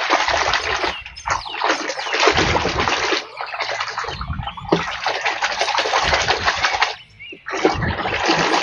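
Water splashing and sloshing as a muddy plastic toy gun is washed by hand in clean water, coming in several bursts with short pauses between them.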